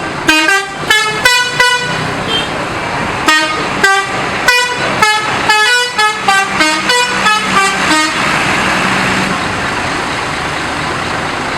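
Indonesian bus 'telolet' musical air horn playing a quick tune of short, separate notes at changing pitches. The notes stop about eight seconds in, leaving only steady vehicle noise.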